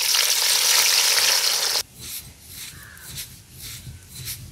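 Sliced onions sizzling loudly as they are dropped into hot oil in a kadai; the hiss cuts off abruptly about two seconds in. After it comes a quieter, rhythmic scraping and rumble: a stone roller grinding roasted coriander on an ammi grinding stone.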